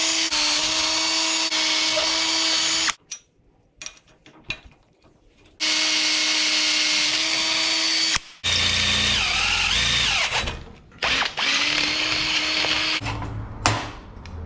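DeWalt cordless hammer drill boring through a steel plate held in a vise. The motor runs at a steady pitch under load, stops about three seconds in, then runs again in several spells, its pitch wavering in the middle one.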